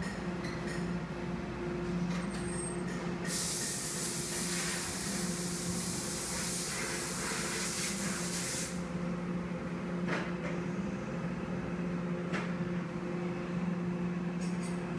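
Steady low machine hum of workshop machinery. A loud hiss starts suddenly about three seconds in and cuts off about five seconds later. Two faint knocks come near the end.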